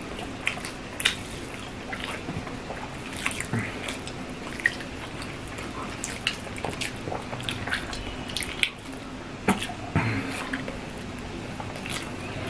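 Two people eating rice and fish curry by hand: wet squishing as fingers mash and mix rice on steel plates, with chewing and lip smacks. Scattered short clicks and ticks throughout.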